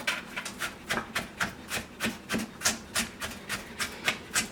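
Red onion being sliced thin with a knife, in steady rhythmic strokes about three a second.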